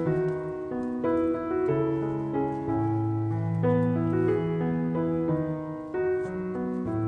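Background piano music: a slow melody over held bass notes and chords.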